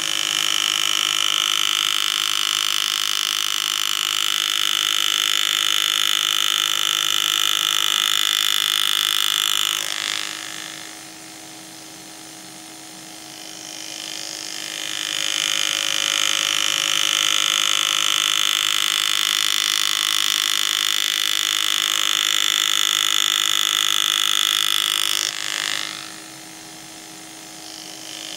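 Pneumatic power graver running with a steady high whine as it cuts lines into a coin, in two long runs: it stops about ten seconds in, builds back up a few seconds later, and stops again near the end. A low steady hum continues underneath.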